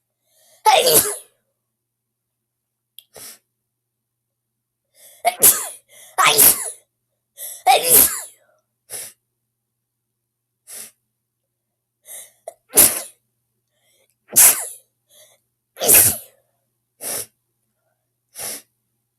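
A girl sneezing over and over: about seven loud, harsh allergy sneezes, some in quick pairs, with shorter, quieter sounds between them and dead silence in the gaps.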